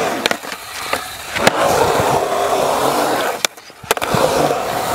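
Skateboard wheels rolling fast on a concrete ramp, a steady rumbling roar as the rider carves the transitions, with a few sharp clacks of the board. About three and a half seconds in the rolling briefly drops out between two clacks, then resumes.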